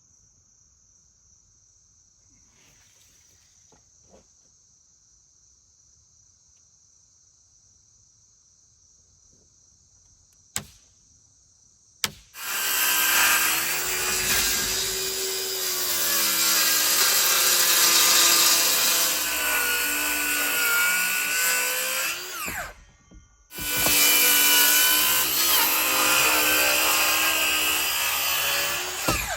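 Cordless circular saw ripping along a chalk line through a thick rough-sawn board, its motor whine dipping under load; it runs for about ten seconds, stops for a moment, then cuts again. Before the saw starts there are about twelve seconds of faint insect buzz.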